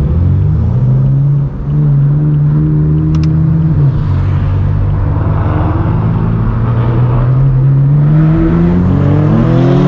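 Straight-piped BMW M4 F82's twin-turbo inline-six running through a non-resonated AWE Track exhaust under throttle. The note climbs, dips briefly about a second and a half in, drops in pitch near four seconds, then rises slowly again.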